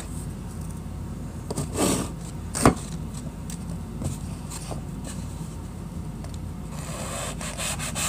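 Knife sawing through a melamine foam magic eraser: a rasping rub starts near the end, after two short knocks a couple of seconds in. A steady low hum sits underneath.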